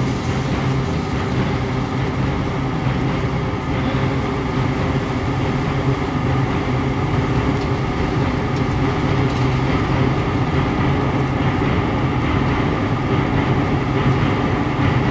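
Burning oil well fire: a steady, unbroken roar with a low hum running through it.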